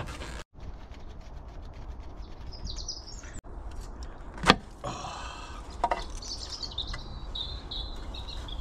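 Birds chirping over a low rumble, with a sharp click about halfway through and a few lighter clicks as hands unfasten and lift off the rocker cover of a Land Rover 200Tdi diesel engine.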